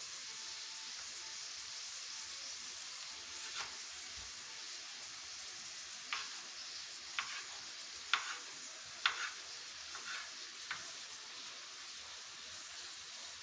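Chopped onion sizzling steadily as it fries in sunflower oil in a frying pan, with about seven sharp knocks scattered through the middle.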